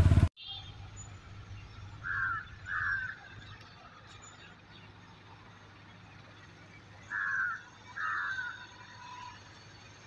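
Crows cawing in two pairs of short calls, about five seconds apart, over quiet open-air ambience. A loud hum cuts off abruptly at the very start.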